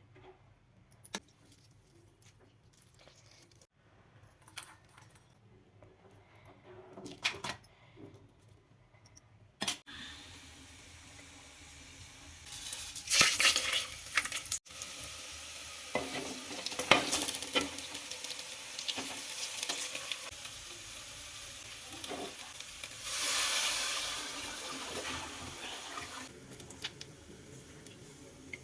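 Food sizzling in a cooking pot, with a spoon stirring and scraping and utensils clinking against the pot. The first ten seconds hold only scattered clicks; then the sizzling starts and runs steadily, swelling louder a few times as the pot is stirred.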